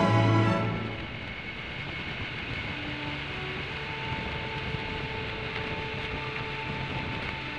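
Music fades out in the first second. After that comes the steady sound of riding a Triumph Tiger Sport, its three-cylinder engine holding an even drone under rushing wind at a constant cruising speed.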